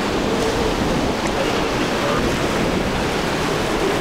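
Steady wind noise on the microphone over rushing surf and spray, with a fast-running boat's twin outboard engines faintly underneath.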